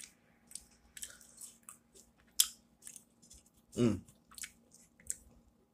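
Close-up chewing of a mouthful of grilled cheese sandwich: a run of short wet mouth clicks and smacks. A brief hum of the voice comes about four seconds in.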